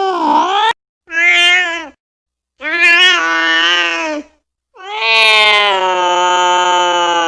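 Angry domestic cat yowling in drawn-out, pitched calls. One call cuts off under a second in, then comes a short call and two long ones, the last held level for about three seconds, with sudden silent gaps between them.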